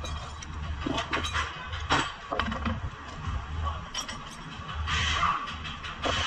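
Scattered metal clinks and knocks from tools and suspension parts as the steering knuckle and hub are worked on and the driveshaft is lined up with the hub, over a steady low hum.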